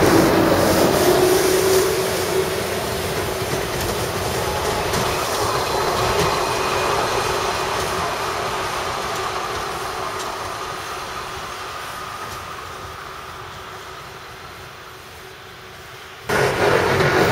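Schneebergbahn 'Salamander' diesel rack railcar running along the cog railway and moving away, its engine and wheel noise fading steadily. About a second before the end, the sound cuts abruptly to a louder, closer train.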